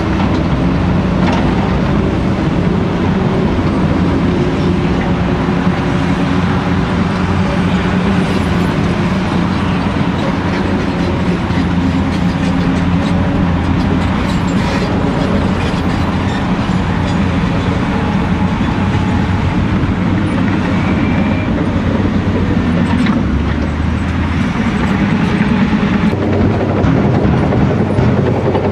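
Heavy diesel construction machinery running steadily: a Caterpillar 345C L hydraulic excavator's engine working under load as it digs, with a few sharp metallic clanks. In the last few seconds the engine sound changes as a Bell B40D articulated dump truck drives toward the camera.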